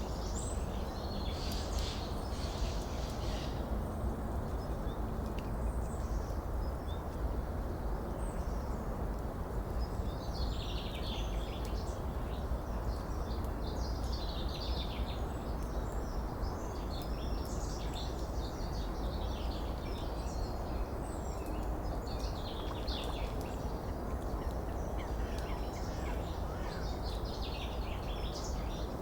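Small birds chirping and twittering in scattered bouts every few seconds over a steady rushing noise of running water.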